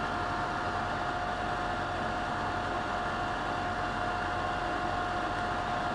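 A 24 volt cabinet extraction fan running steadily: a constant rush of air with a steady mid-pitched whine.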